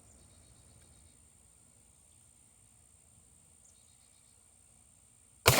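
Near silence, then near the end a single loud shot from a Glock pistol in .40 caliber.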